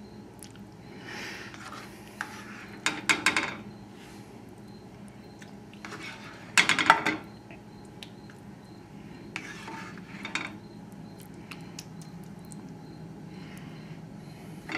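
Serving utensil clinking and scraping against a skillet and dishes while creamy pasta is spooned out. The clatters come in short clusters, the loudest about three seconds in and again about seven seconds in.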